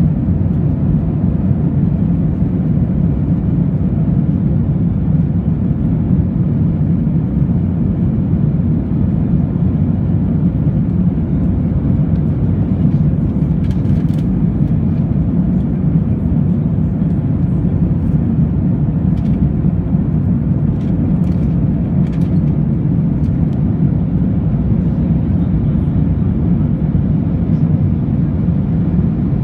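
Steady cabin noise of an Airbus A321 climbing after takeoff: an even, low roar of engines and rushing air, with a few faint clicks in the middle.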